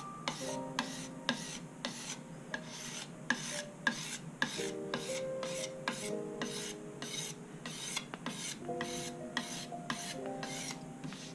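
Steel card scraper drawn in quick, even strokes along a guitar's wooden fretboard, making a dry rasping scrape about three times a second.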